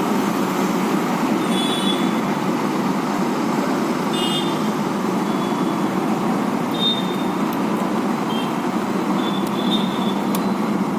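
Steady background noise like road traffic. A few faint short high chirps come through it, and there are a few light clicks near the end.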